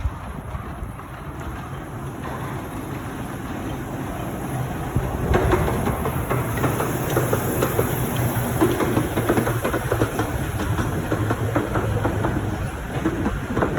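A 15-inch-gauge miniature railway train running on the track, its wheels clattering over the rails with a steady low rumble, growing louder about five seconds in.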